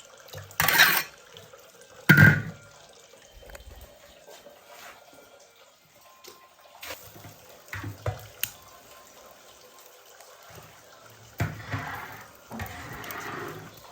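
Kitchen water sounds: water splashing and running, as when rinsing a pot or wok, broken by small knocks of kitchen utensils. Two louder splashes or clatters come in the first few seconds, and a longer stretch of running water comes near the end.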